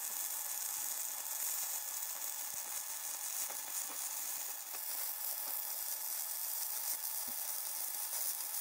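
Stick (arc) welding: the electrode's arc burning with a steady crackling hiss as a steel lug bracket is welded onto a square-tube arm.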